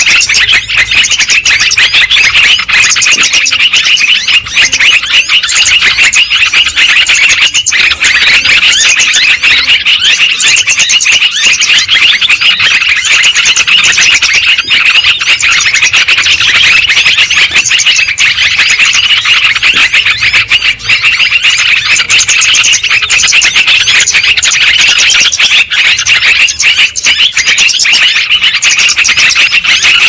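Yellow-vented bulbul calls: a loud, unbroken stream of fast, overlapping chattering notes, a lure recording for trapping the species.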